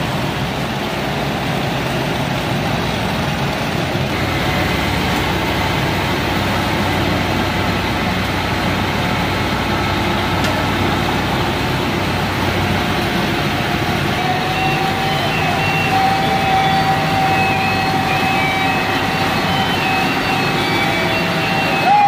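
Diesel engine of an asphalt paver running steadily as it lays asphalt. A steady high whine joins about two-thirds of the way in, with short repeated tones above it.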